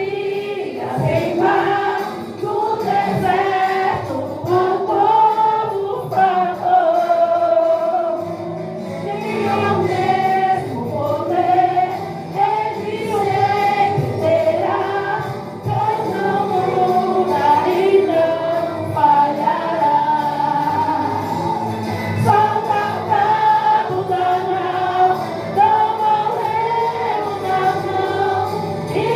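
Choir singing a Portuguese-language gospel song in unison with instrumental backing.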